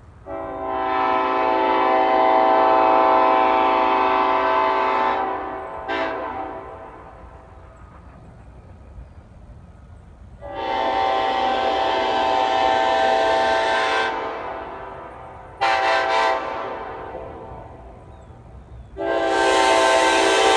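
Nathan Airchime K5LLA five-chime air horn, its 1L bell reversed, sounding a steady chord in several long blasts of about four to five seconds with two short toots between them. The horn has bells 1L, 1, 2, 3A and 4A, which give it a deeper tone than a standard K5LA.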